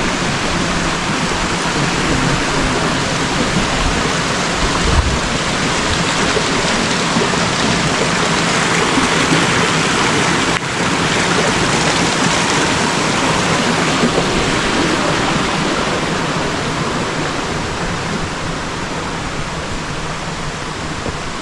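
Waterfall running: a steady rush of falling water, growing fainter over the last several seconds.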